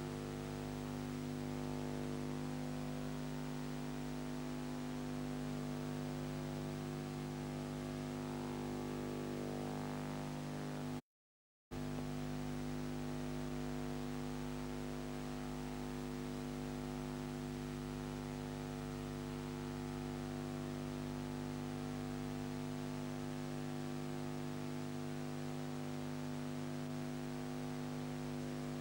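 Steady electrical hum over hiss, with no other sound, typical of the soundtrack of a silent ciné-film transfer. It cuts out completely for under a second about eleven seconds in.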